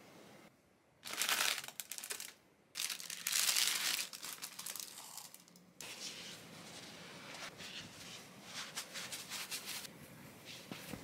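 Plastic wrapping crinkling and tearing as disposable hotel slippers are unpacked, in two loud bursts of about a second each. Lighter crackly rustling follows, then fainter scattered clicks and taps after a sudden drop about halfway through.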